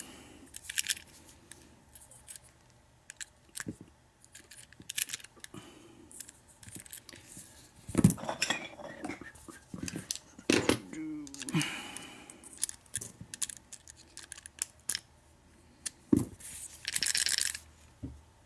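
Small metal lock parts and tools clicking and clinking as a Master Lock padlock is taken apart to remove its cylinder, with a short scraping rasp near the end.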